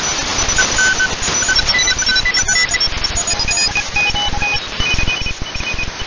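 Shortwave radio tuned to 14015.0 kHz, in the Morse code part of the 20-metre amateur band: several Morse code signals beeping at different pitches over steady hiss and static crackle.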